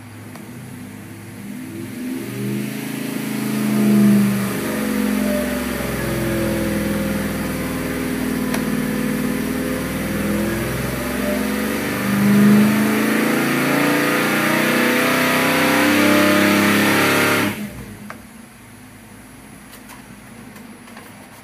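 455 cubic-inch Oldsmobile big-block V8 on fuel injection, breathing through headers and mufflers, pulling hard at full throttle against an engine dyno's load during a power sweep, its speed climbing through the low-to-mid rpm range. Near the end the throttle closes suddenly and the engine drops back to a quieter idle.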